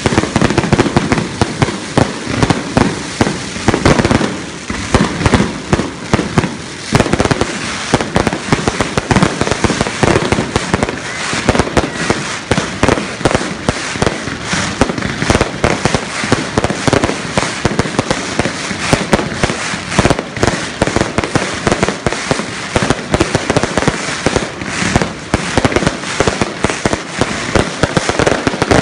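Fireworks barrage: loud, rapid bangs and crackles, many a second, in a continuous run.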